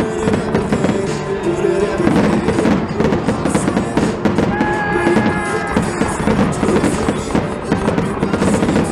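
Aerial fireworks shells bursting and crackling in quick succession, with music playing underneath.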